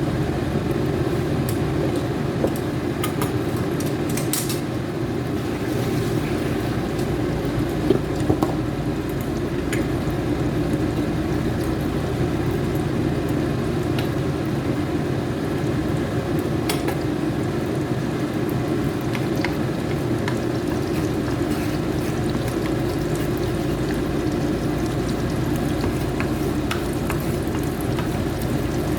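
Food cooking in a pan: a steady frying noise with a few light clicks of a utensil against the pan.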